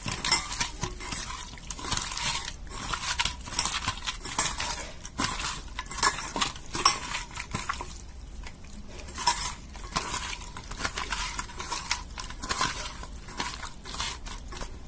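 Raw chicken pieces being mixed by hand with turmeric, salt and mustard oil in a steel bowl: irregular wet squelching, with clinks and scrapes of the pieces and fingers against the steel.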